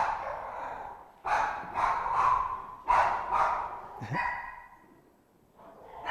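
Pet dogs barking, about six sharp barks over the first four seconds, echoing in a large room.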